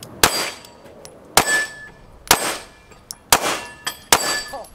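Five handgun shots at a Texas Star steel target, about one a second. Each hit lands with a loud ringing clang from the steel plate as it is knocked off the star.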